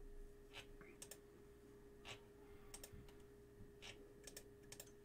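Faint computer mouse clicks, about a dozen short sharp ones at irregular intervals, some in quick pairs, as the next round of a randomiser is clicked over and over. A faint steady hum sits underneath.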